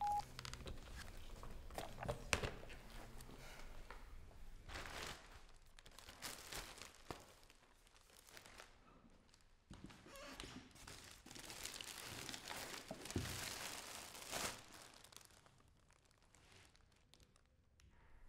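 A plastic shopping bag rustling and crinkling as it is handled and carried, with scattered footsteps.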